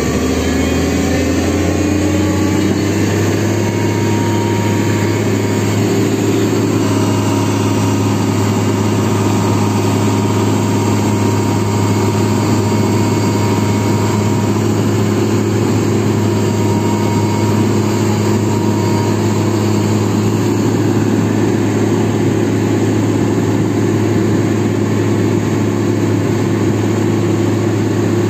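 Tata Hitachi excavator's diesel engine running, its pitch rising over the first couple of seconds as it speeds up, then holding steady.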